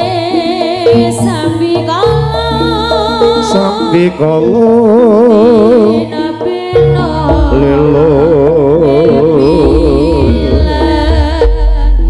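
Loud live Jaranan music: a melody line with heavy, wavering vibrato over a deep drum and bass part that comes in and drops out.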